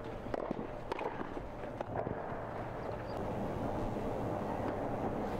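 A few sharp tennis-ball impacts in the first two seconds, then steady outdoor court ambience with no further knocks.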